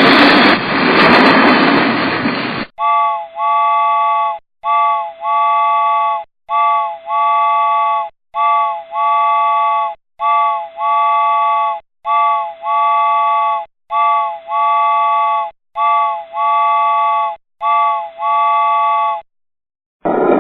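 Train running noise that cuts off about three seconds in. Then a multi-tone train whistle chord sounds nine times in short-long pairs, each a quick toot followed by a longer held note.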